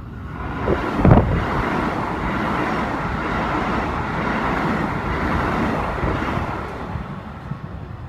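A red Keikyu electric train passing close by at speed: steel wheels on rails and the rush of the cars, with one sharp hit about a second in, then an even run that fades near the end.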